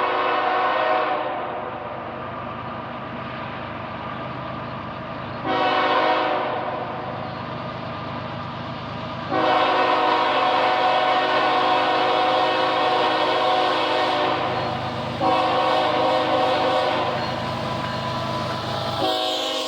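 Canadian Pacific ES44AC freight locomotive's air horn sounding a series of blasts: one ending about a second in, a short one about six seconds in, a long one of about five seconds near the middle, another shorter one, and a new blast starting near the end. The train's running noise carries on between blasts.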